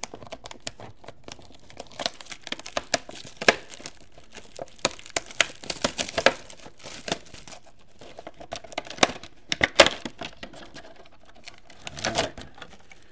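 Plastic shrink wrap crinkling and tearing in irregular crackles as a sealed box of football trading cards is unwrapped.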